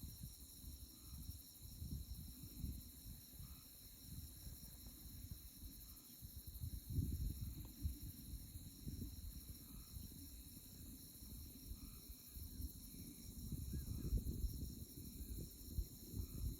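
Chorus of night insects in tallgrass prairie, a steady high-pitched trilling that pulses finely throughout. Under it, a low uneven rumble swells and fades, loudest about 7 seconds in and again near the end.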